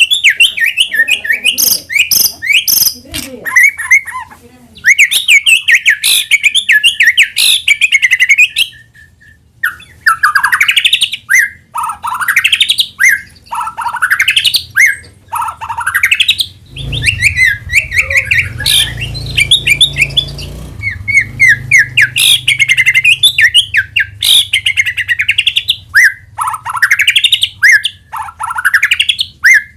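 White-rumped shama (murai batu) singing: fast, dense chattering bursts at first, then a run of loud swooping whistles, each dipping and rising, about one a second.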